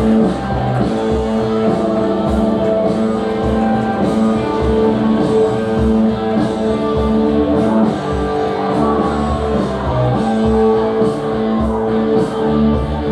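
Rock music with guitar, a steady drum beat and a singing voice.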